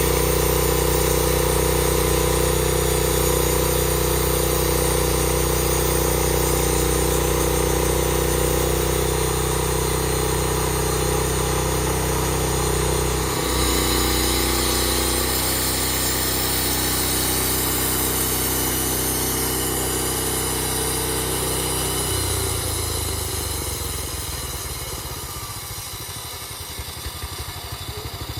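Small gasoline engine running steadily. Its low hum drops about three-quarters of the way through, and the sound turns quieter and rougher.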